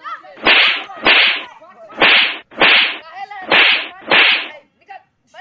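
Whip-crack sound effect: six loud swishing cracks in three quick pairs, each pair about a second apart, with faint voices between them.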